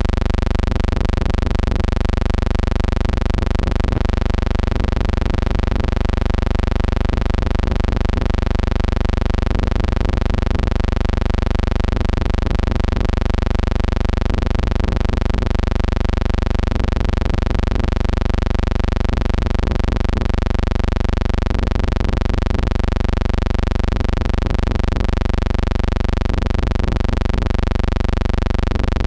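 A steady, low buzzing hum with many overtones, never changing in pitch or loudness.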